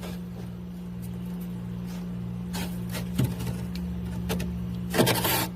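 Freezer ice and frost being scraped and broken loose: a few faint ticks and cracks over a steady low hum, then a loud rasping scrape near the end.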